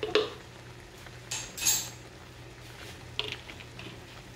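Spoon scraping and knocking against a cooking pot as the chutney is stirred: one longer scrape about a second and a half in, then a few light clicks near the end.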